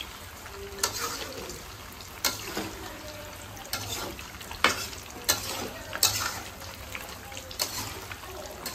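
Fish frying in hot oil with a steady sizzle, broken by sharp clicks and scrapes from stirring in the pan about once a second.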